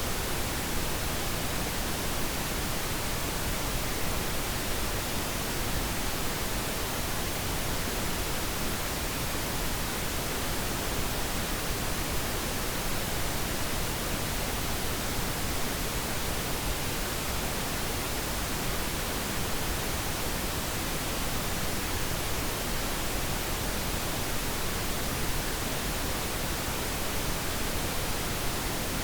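Steady pink noise: an even, unchanging hiss over all pitches.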